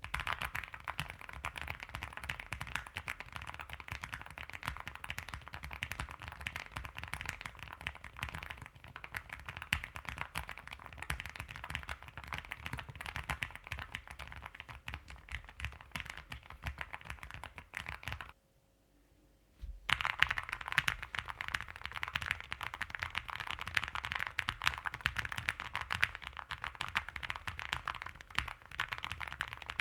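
Fast, continuous typing on a low-profile mechanical keyboard: rapid key clicks and clacks, stopping briefly about two-thirds of the way through and then starting again.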